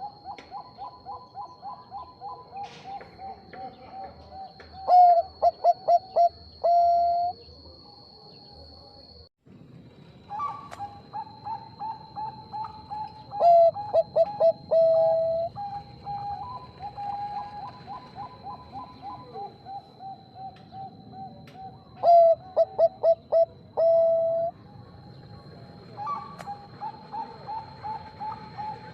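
Bangkok-strain perkutut (zebra doves) cooing: a steady stream of soft, quick notes, broken three times by a loud phrase of stuttering coos that ends in a longer, lower coo. A faint steady high whine runs underneath.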